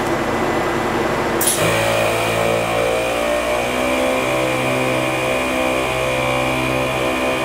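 12-volt ARB twin air compressor running as it fills a tyre through an inflator hose and gauge chuck. About a second and a half in, background music with a stepping melody cuts in and takes over.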